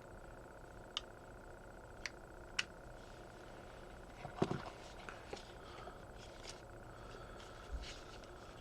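Faint, scattered clicks and light taps, about half a dozen, over quiet room tone.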